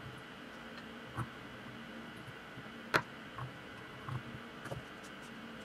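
Small hex driver turning the center screws of an RC beadlock wheel: a few light metallic clicks and ticks of tool and screws, with one sharper click about three seconds in, over a faint steady room hum.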